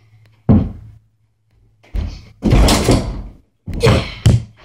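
An over-the-door mini basketball hoop banging and rattling against a closet door as a ball is dunked. A sharp knock comes about half a second in, a longer, louder clatter follows around two to three seconds in, and another bang comes near the end.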